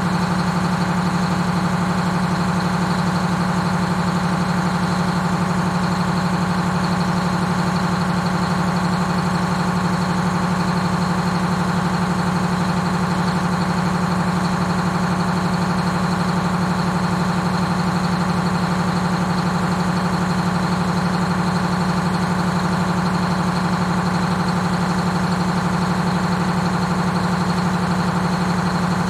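The 1948 GMC Silversides bus's Detroit Diesel 6-71 two-stroke diesel engine idling at an even, unchanging speed.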